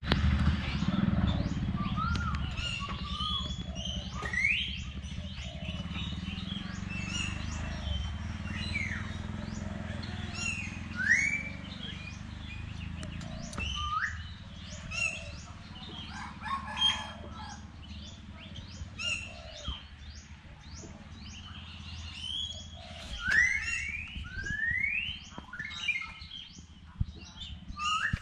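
Birds calling, with repeated short upward-sweeping chirps and quick ticking notes over a steady low rumble.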